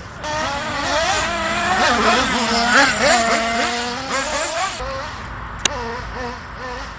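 Radio-controlled off-road car's motor whining, its pitch rising and falling over and over with the throttle, loudest in the first half. A single sharp click about five and a half seconds in.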